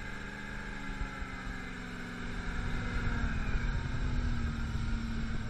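Vintage Dodge Power Wagon truck engine running as the truck drives, a steady low drone with rumble whose pitch rises slightly a couple of seconds in.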